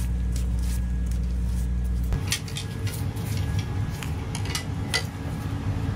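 A Mercedes Sprinter's front brake rotor and hub spinning by hand on new wheel bearings while the bearing preload is being set: a steady low rumble that stops abruptly about two seconds in. Scattered metallic clinks follow as large slip-joint pliers are fitted on the axle nut.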